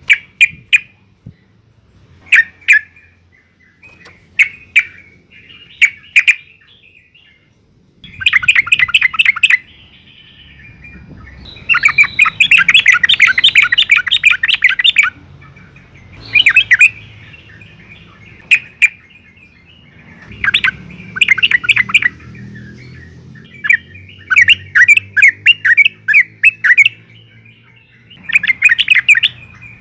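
Yellow-vented bulbul (trucukan) calling in short, loud bursts of rapid bubbling notes, with a longer chattering run about twelve seconds in.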